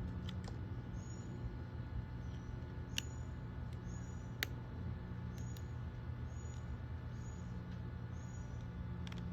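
Two sharp clicks, about three and four and a half seconds in, as pliers work a rubber spark plug boot onto a chainsaw's ignition lead. Underneath runs a steady low hum, with a short high chirp repeating about once a second.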